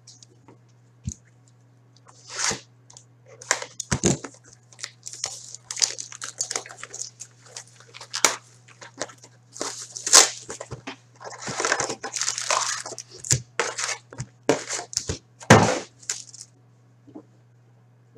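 Plastic shrink-wrap being torn and crinkled off a trading-card box, then the cardboard lid opened and foil card packs handled, in quick irregular rustles and rips over a faint steady low hum.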